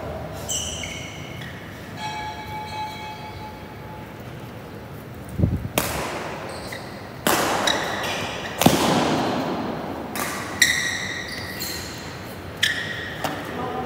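Badminton rally: racket strings striking the shuttlecock, a series of sharp cracks from about six seconds in. Court shoes squeak on the court floor early on and again between strikes, with a low footfall thud just before the first hit.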